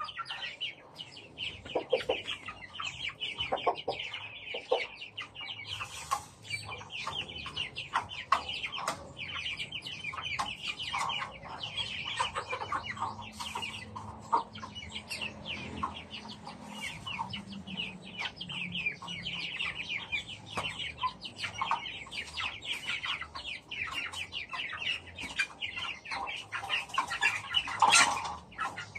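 A flock of chickens clucking and chirping together at feeding time, a steady busy chatter of short high calls. A brief louder noise stands out near the end.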